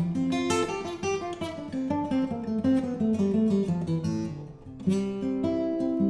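Steel-string acoustic guitar played solo: a run of picked notes stepping down in pitch, then a strummed chord about five seconds in.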